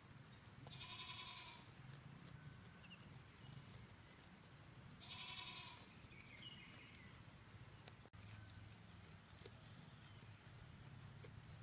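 Goat bleating twice, two calls each about a second long and some four seconds apart.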